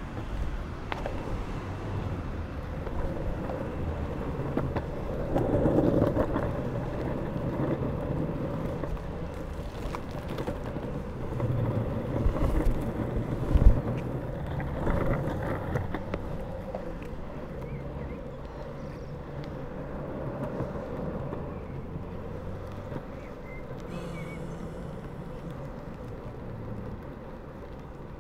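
Drop-through longboard's urethane wheels rolling over an asphalt path, a steady rumble with wind on the microphone. A single sharp knock comes about two thirds of the way through.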